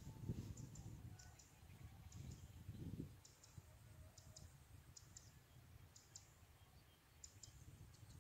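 Near silence: a faint low rumble of wind on the microphone, with light, sharp clicks, often in pairs, about once a second.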